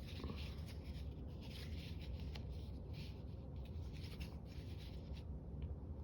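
Repeated scratchy rubbing strokes on paper as glue is worked across a page stiffened and crunchy from layers of dried glue.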